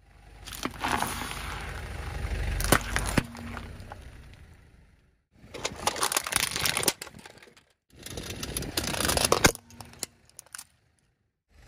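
Objects crunching and cracking as a car's tyre rolls over and crushes them, with many sharp snaps. The sound comes in three separate takes, each cut off suddenly.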